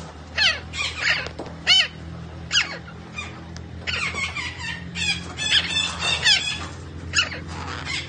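A parrot calling: about a dozen short, shrill squawks, each sweeping down in pitch, coming in quick runs that crowd together from about four seconds in.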